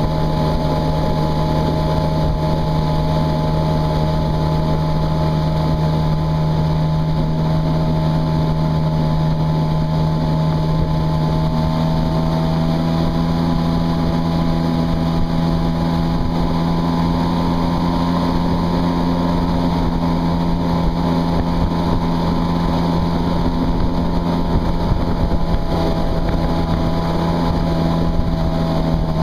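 Yamaha WaveRunner jet ski running at steady cruising speed: a constant engine drone over the rush of the jet wash and spray, with wind on the microphone. The engine pitch climbs slightly about twelve seconds in and then holds.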